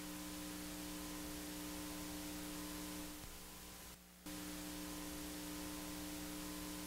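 Faint steady electrical hum with a light hiss, cutting out to silence for a moment about four seconds in before returning.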